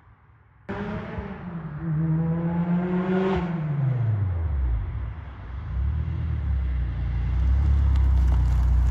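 The engine of a freshly swapped Honda, running on a base map with VTEC not yet active, cuts in suddenly about half a second in. It revs up with a rising pitch, then drops off with a falling pitch a little past the middle. A deep, low exhaust rumble follows and grows steadily louder toward the end.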